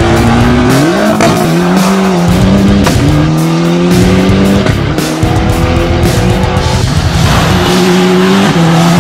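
Ford Escort Cosworth rally car's turbocharged four-cylinder engine revving hard under acceleration, its pitch climbing and then dropping back several times as it changes gear.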